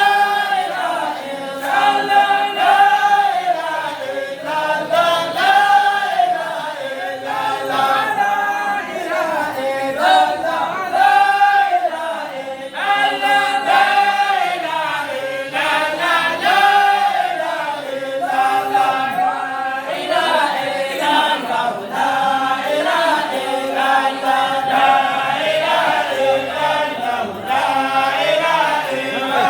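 A group of voices chanting an Arabic devotional song together, a melody rising and falling in short repeated phrases, with no instruments.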